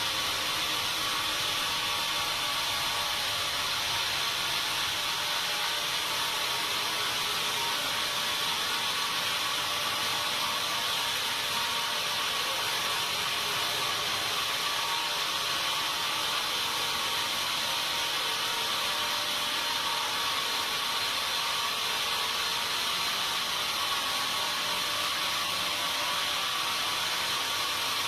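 Sawmill saw running continuously, a steady mechanical noise that does not change in level, with a constant whine running through it.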